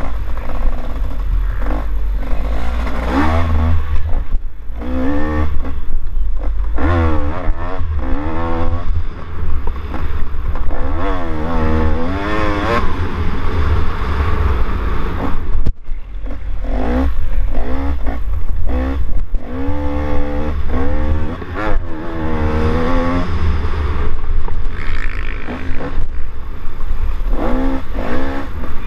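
Dirt bike engine revving up and dropping back again and again as it is ridden hard along a dirt trail, each rise in pitch cut off at a shift or throttle lift. A heavy low rumble of wind runs on the microphone throughout.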